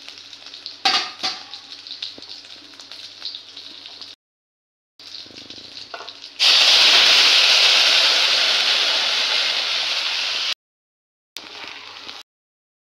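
Whole spices (cumin, bay leaves, dried red chilli and ginger) sizzling in hot oil in an iron kadai, with a couple of sharp knocks about a second in. About six seconds in, cooked moong dal is poured onto the hot tempering and sets off a sudden, loud sizzle that slowly eases off.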